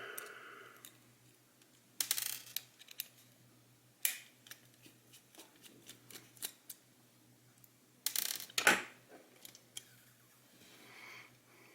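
Small plastic parts of a Delux M618 PLUS vertical mouse clicking and rattling as it is worked apart by hand. Scattered sharp clicks, with a loud cluster about two-thirds of the way through.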